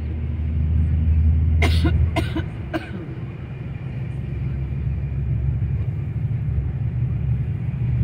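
Steady low rumble of a moving bus's engine and road noise heard inside the cabin, with three short coughs from a person about two seconds in.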